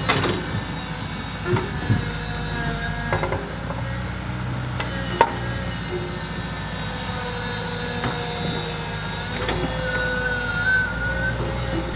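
Heavy construction machinery's diesel engine running steadily, with a few sharp knocks.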